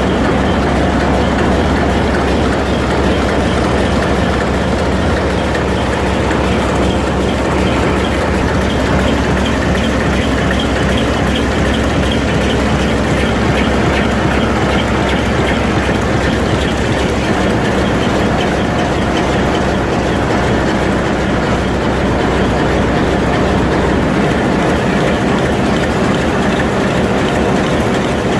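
A large old engine running steadily, with a dense fast mechanical clatter over a low hum; the low hum drops away about 24 seconds in.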